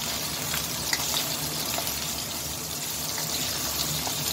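Chicken nugget strips sizzling in hot oil in a wok, with small clicks and scrapes as a spatula turns them, over a steady low hum.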